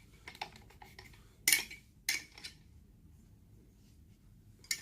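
Metal clicks and clinks of a spanner working the wheel nut on an angle grinder's spindle, with two louder clinks about a second and a half and two seconds in, then a pause before more clicks near the end.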